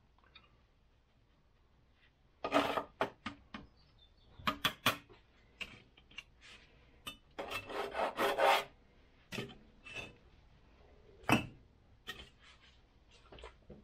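Steel trowel scraping and spreading mortar on firebricks in irregular strokes, with one longer scrape near the middle and a few sharp knocks of trowel or brick on brick.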